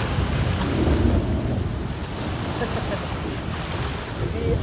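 Lake Michigan waves breaking and washing up on a sandy shore, with gusty wind buffeting the microphone.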